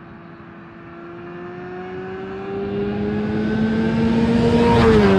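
A road vehicle approaching and passing close by. Its steady engine tone climbs slowly in pitch and loudness, is loudest about five seconds in, and drops in pitch as it goes past.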